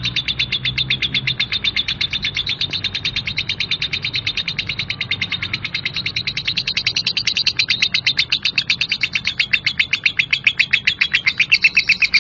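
Lovebird singing 'ngekek': one long unbroken chattering trill of rapid harsh notes, about nine a second, growing louder past the middle.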